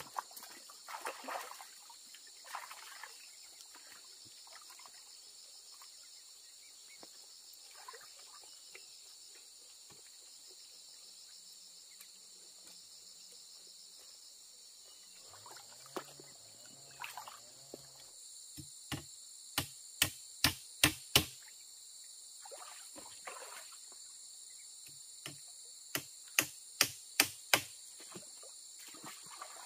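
Insects chirring steadily in a high drone. Partway through come two runs of sharp knocks, about two to three a second and six or seven in each run, the first growing louder as it goes.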